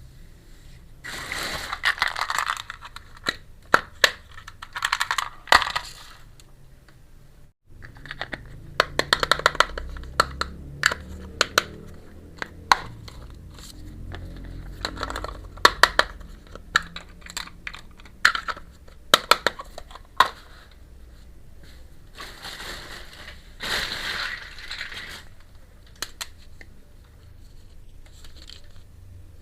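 Small miniature steel toy kitchen pieces clicking and clinking as they are handled and set down, with a few short bursts of packaging rustling.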